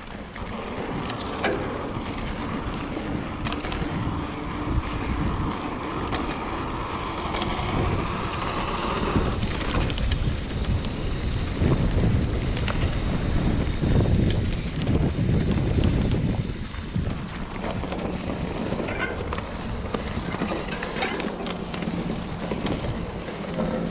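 Mountain bike rolling over grass and a dirt trail: a steady rumble of knobby tyres with scattered clicks and rattles from the bike, under wind noise on the microphone. The rumble is heaviest about halfway through.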